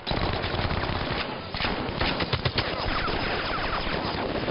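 Heavy battle gunfire: rapid automatic fire and rifle shots overlapping. There is a brief lull about a second in.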